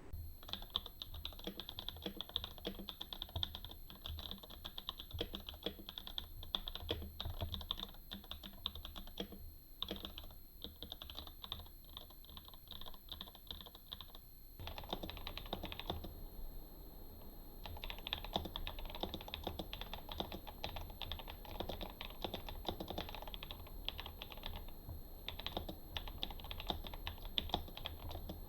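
Typing on a keyboard: fast, irregular key clicks, broken by a few short pauses, the longest about sixteen seconds in.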